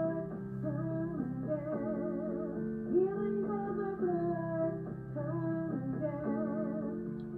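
A worship song with acoustic guitar and a woman's singing voice, slow sustained notes with vibrato.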